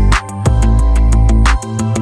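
Background music with a steady electronic beat, heavy bass and a plucked guitar-like melody.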